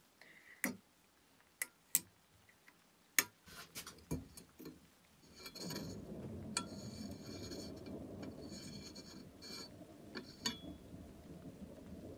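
Antique brass blowtorch being handled: a few sharp metallic clicks in the first few seconds, then from about five seconds in a steady scraping rub of brass on brass as the threaded wing filler cap is turned.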